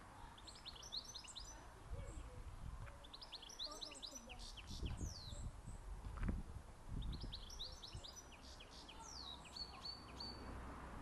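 A small songbird sings three phrases of quick, high, sweeping notes, with low rumbling thumps in between; the loudest thump comes about six seconds in.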